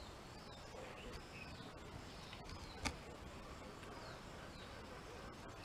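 Quiet outdoor background with faint, scattered high chirps of distant birds and a single short click about three seconds in.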